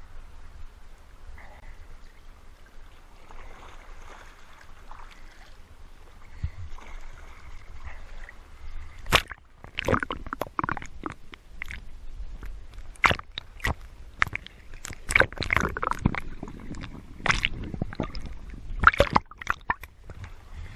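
Water sloshing and gurgling around a head-mounted GoPro as a swimmer dives under the surface and comes back up. It is muffled at first, then from about nine seconds in there are many sharp clicks and knocks.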